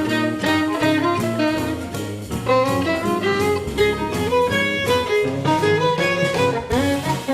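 Upbeat instrumental background music with bowed strings and a steady beat.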